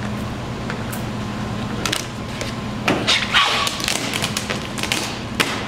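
Vinyl wrap film rustling and crinkling as it is pulled and smoothed by hand over the hood edge, with scattered light taps and clicks and a louder crinkle about three seconds in. A steady low hum runs underneath.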